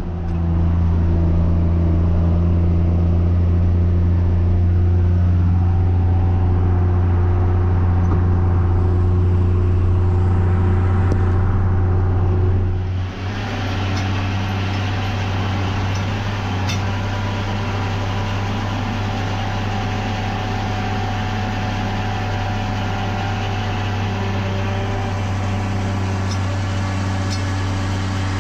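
Farm tractor engine running steadily while baling hay, with a strong low hum. About halfway through, the sound changes abruptly to a brighter, noisier machine sound with a few faint ticks.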